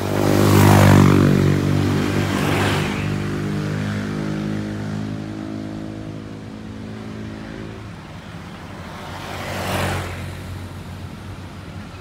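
Motorcycles passing close by one after another, loudest about a second in, again near three seconds and near ten seconds. Under them runs a steady engine hum that fades away after about eight seconds.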